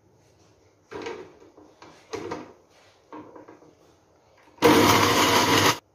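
A few knocks as the steel jar is set on a Bajaj mixer grinder's base, then the mixer grinder runs loudly for about a second, dry-grinding garlic and ginger with no water added, and cuts off suddenly.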